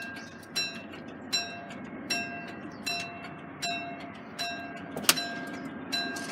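UK level crossing alarm sounding, one pitched ringing strike about every three quarters of a second, over a low rumble. A single sharp click stands out about five seconds in.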